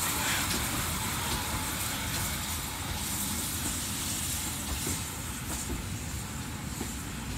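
GWR tank steam locomotive No. 5199 and its coaches moving slowly along the track: a steady rumble with a high hiss, easing off slightly towards the end.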